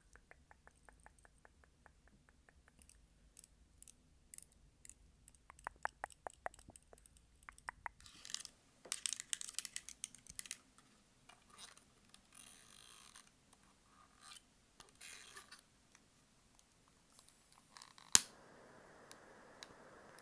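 ASMR tapping on candles: a run of quick light taps, then slower, louder taps, followed by several short scratching, rustling stretches. Near the end a single sharp click is followed by a steady hiss.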